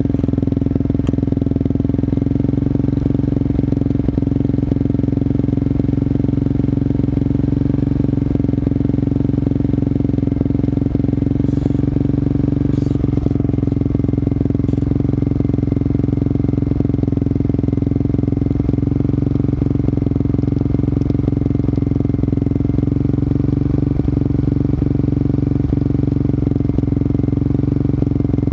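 Yamaha Warrior 350 ATV's single-cylinder four-stroke engine idling steadily, heard close up from a camera mounted on the quad.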